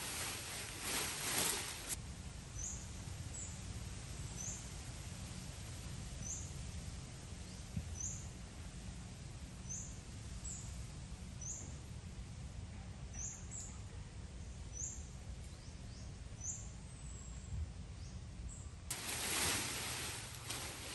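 A small bird giving short, high, thin chirps, each sliding down in pitch, about one a second, over a steady low outdoor rumble. A louder rush of hiss comes in the first two seconds and again near the end.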